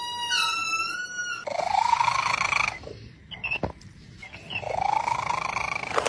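Domestic cat vocalizing: a short steady high-pitched call at first, then two drawn-out calls about two seconds apart, each rising in pitch and lasting about a second.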